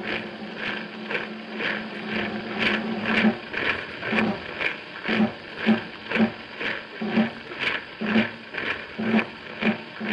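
A held low note dies away about three seconds in, under a steady rhythm of footfalls at about two a second that carries on: a radio sound effect of troops marching through snow.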